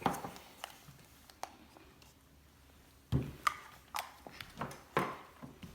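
Scattered light taps and knocks of a Play-Doh playset being handled, as Play-Doh is pressed into a mold; the loudest knocks come about three seconds in and again near the end.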